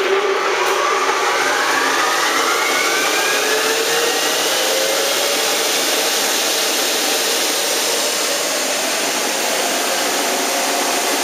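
Sonny's 15-horsepower commercial car-wash central vacuum unit starting up. A loud rush of air runs with a whine that rises in pitch over the first several seconds as the motor comes up to speed, then it runs steadily.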